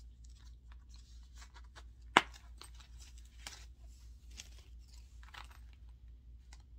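A small coated-canvas Coach snap wallet being handled and opened: soft rustling and crinkling with scattered light clicks, and one sharp click about two seconds in.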